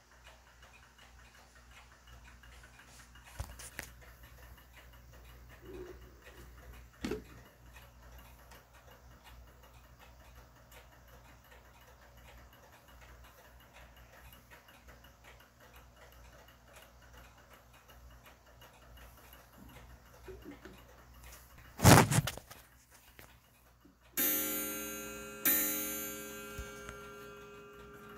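Ansonia mantel clock's coiled wire gong struck twice near the end, about a second and a half apart, each stroke ringing with a long fading tone. Before it, the clock ticks faintly under a few handling knocks, the loudest a sharp knock a couple of seconds before the gong.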